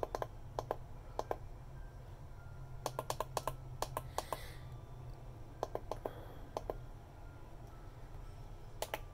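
Push buttons on an FG-100 DDS function generator clicking as they are pressed, sharp short clicks in quick runs of two to six with pauses between, over a steady low hum.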